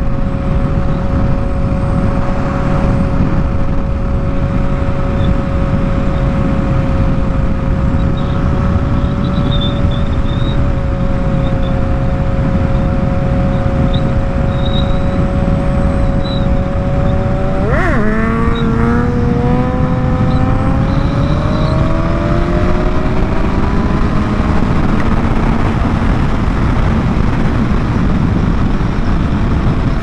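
BMW S1000RR inline-four sportbike engine cruising at steady revs under heavy wind rush. About 18 seconds in the revs dip sharply with a quick blip, then climb steadily for several seconds as the bike accelerates, and settle again.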